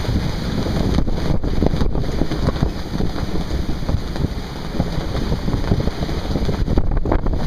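Strong wind buffeting the microphone over the rush of the sea around a sailboat in heavy weather.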